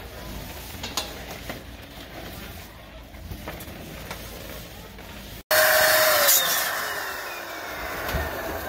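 Light rustling and handling of latex balloons with faint clicks. About five and a half seconds in, an electric blower motor is suddenly heard running loudly with a rush of air, then winds down, its pitch falling slowly.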